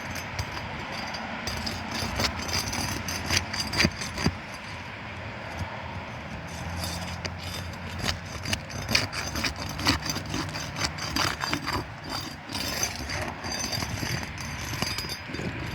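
Irregular scraping, clicking and tearing as a sealed asphalt roof shingle is pried and worked loose, over a steady low hum.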